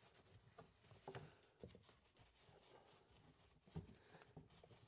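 Near silence, with a few faint taps and rustles from gloved hands handling the disconnected positive battery cable.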